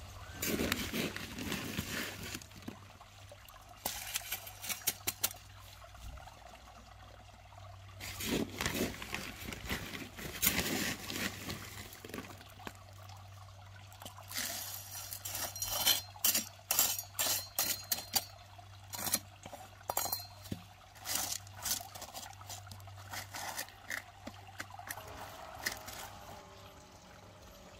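Small gravel ballast tipped and spread from a hand trowel onto garden-railway track, the stones rattling in repeated bursts of quick clicks.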